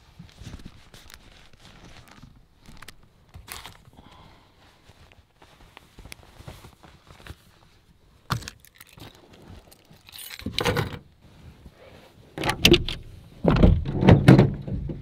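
Rustling of a sleeping bag and bedding inside a truck-bed camper shell as someone stirs and moves about, with scattered clicks and knocks. From about ten seconds in the rustling and thumps get much louder.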